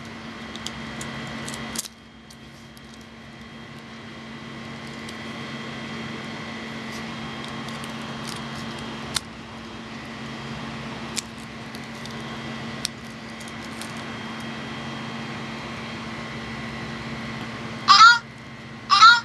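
Banana sound keychain being handled and pulled, faint clicks over a steady hum; near the end its tiny speaker plays two short, loud electronic sound clips, each rising in pitch.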